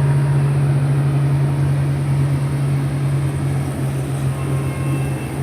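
Diesel engine of an SF 1700 road paver running steadily under load, a constant low drone with no change in speed.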